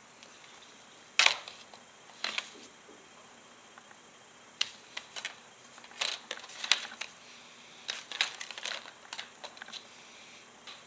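Sharp plastic clicks and crackles in irregular clusters as model railway rails are worked free of their plastic sleepers.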